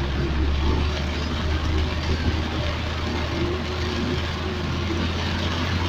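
Car driving through heavy rain, heard from inside the cabin: a steady low engine hum under an even hiss of rain and wet road.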